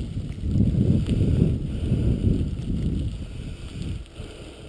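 Wheels of a dog-drawn mushing rig rolling over a rough road surface: a low, uneven rumble that dies down near the end.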